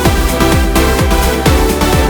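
Electronic dance music with a steady four-on-the-floor kick drum, about two beats a second, under a full synth mix.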